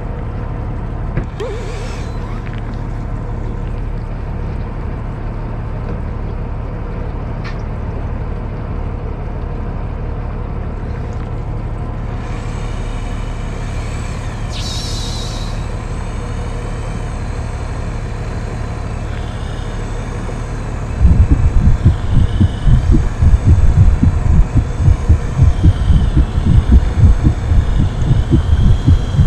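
A fishing boat's engine running with a steady low hum. About two thirds of the way through, loud, irregular low buffeting thumps begin and keep coming, louder than the hum.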